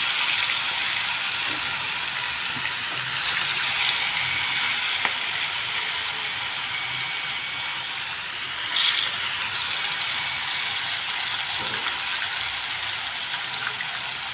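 Marinated mutton chops deep-frying in hot oil: a steady hiss and crackle of sizzling, which surges suddenly about nine seconds in as another chop is lowered into the oil.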